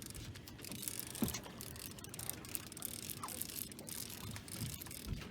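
Fishing reel being cranked, its gears clicking rapidly as a hooked catfish is reeled in.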